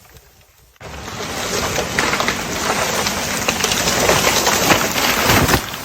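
An oak tree falling: a sudden rush of crackling, snapping branches that builds for several seconds, ending in a heavy thud as it hits the ground.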